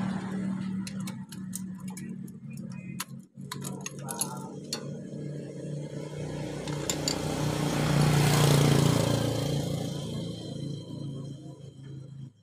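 Sharp metal clicks and clinks as a screwdriver works the camshaft timing sprocket off a motorcycle engine, over a steady low drone that swells up about two-thirds of the way through.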